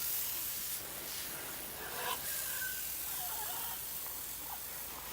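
Water spraying from a hose or sprayer nozzle with a steady hiss as parrots are given a shower, with a few faint short bird calls.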